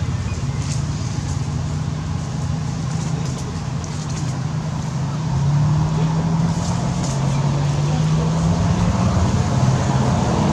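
A motor engine running steadily with a low hum, growing louder and slowly rising in pitch about halfway through.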